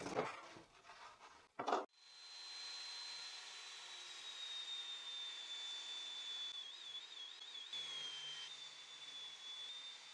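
Bosch GTS 254 table saw ripping a pine board lengthwise, heard faintly: after a short knock, the blade's high whine and cutting noise set in about two seconds in and hold, the whine sagging slightly in pitch and wavering as the blade works through the wood.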